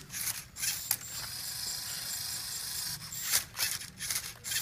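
Rubik's Cube layers being twisted, in quick irregular runs of plastic clicks and rattles over a steady hiss.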